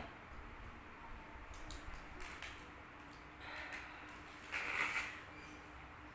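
Close-miked eating sounds: quiet chewing with small clicks, and two short breathy hisses about three and a half and four and a half seconds in.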